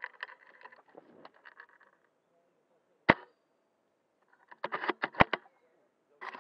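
VSR-10 spring-powered bolt-action airsoft sniper rifle being swung and fired: handling rustle and small clicks at first, one sharp shot about three seconds in, then a quick run of clicks ending in a second sharp snap around five seconds, the bolt being worked.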